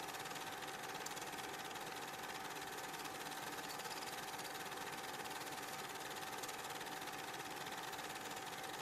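Steady mechanical whir of a film projector running, with an even hiss and a constant hum tone. There is no game sound.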